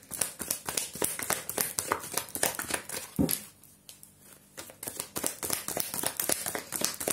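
A tarot deck being shuffled by hand, the card edges flicking and rustling in quick, dense runs, with a soft knock about three seconds in and a brief lull just after.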